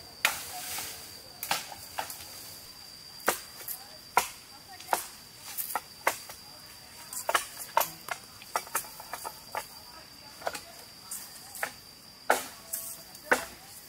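Irregular sharp chops and cracks of bamboo being cut and trimmed, roughly one or two a second, some louder than others.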